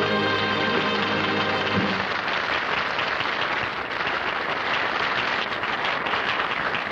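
Audience applauding, with the last held chord of the song's musical accompaniment ending about two seconds in.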